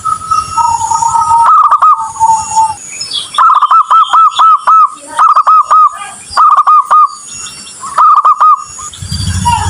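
Zebra doves cooing: bursts of rapid, arching notes repeated every second or so, with a lower, drawn-out coo in the first few seconds.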